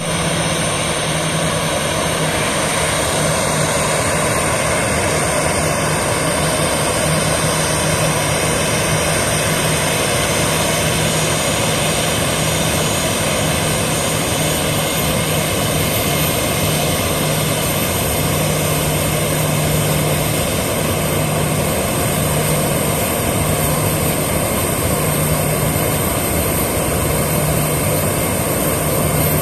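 Boeing 737 jet engines running at taxi idle: a loud, steady rush of engine noise with a thin high whine, unchanging throughout.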